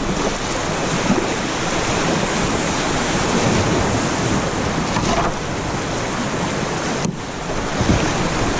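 Fast river water rushing and splashing around a kayak as it runs a chute, with wind buffeting the microphone.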